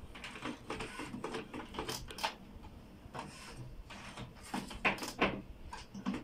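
HP Smart Tank 515 inkjet printer's mechanism running its start-up routine after being switched on: an irregular run of mechanical clicks and short whirs, loudest in two sharp clacks near the end.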